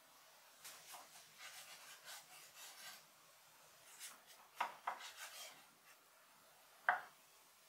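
Soft scraping and rubbing strokes, then a few light knocks among more scraping, with one sharper knock near the end.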